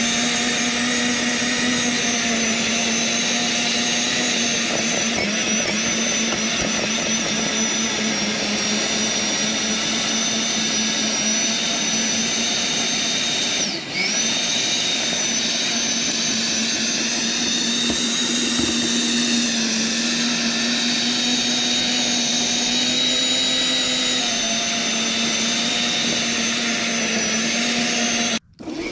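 Sun Joe TJ604E 13.5-amp electric tiller running, a steady motor whine as its tines churn through soil, with a brief dip in speed about halfway through. The sound cuts off abruptly just before the end.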